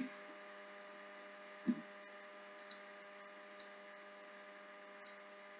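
Faint steady electrical hum on the microphone, with a few soft computer mouse clicks and one brief low sound about one and a half seconds in.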